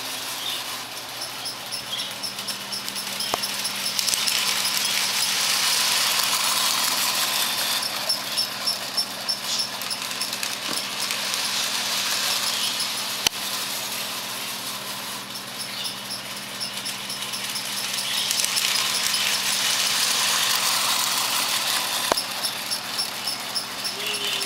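Lionel toy electric train running on tinplate track: the locomotive's electric motor whirring and the wheels rattling along the rails, over a steady low hum. It swells louder twice as the train comes round the loop close by.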